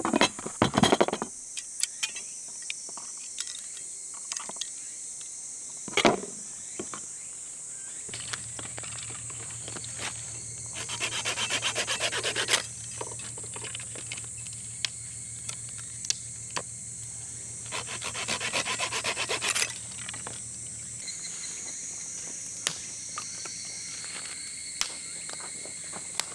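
A blade cutting into dry sticks: two stretches of quick rasping strokes, each lasting a second or two, with scattered snaps and knocks of twigs being handled.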